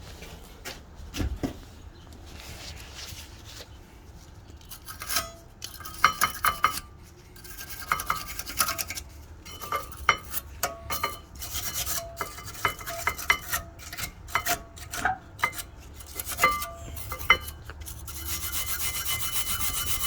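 Metal tools and brake parts clinking and knocking against each other, many short ringing clanks. Near the end a steady, fast rasping starts and keeps going.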